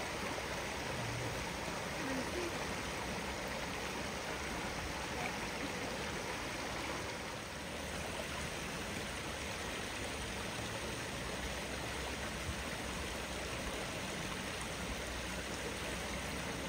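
Shallow creek rushing over rocks in a riffle: a steady wash of running water.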